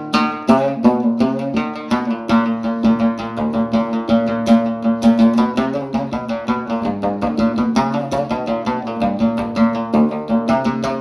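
Background music on a plucked string instrument: a fast run of picked notes over a steady held low note.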